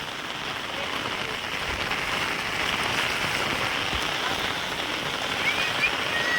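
Heavy rain falling, a steady, even hiss of rain on surfaces.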